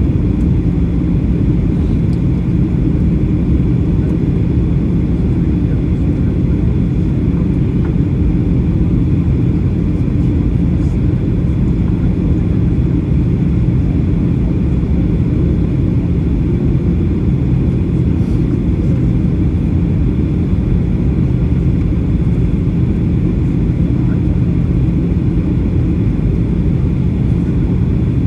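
Steady cabin noise aboard a Boeing 737-800: a low drone from its CFM56 engines and airflow, with a constant hum, unchanging throughout.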